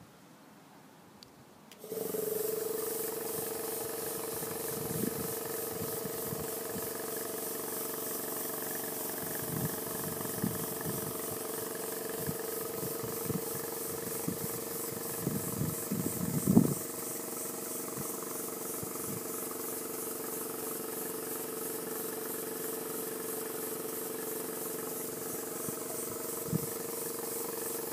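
Model V4 double-acting oscillating steam engine running on compressed air: it starts about two seconds in and runs on steadily with a fast hissing exhaust beat and a steady hum. A few low knocks, one louder thump past the middle.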